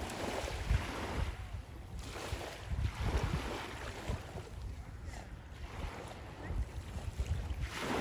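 Wind buffeting the microphone in uneven low rumbles, over a steady outdoor hiss that swells a few times.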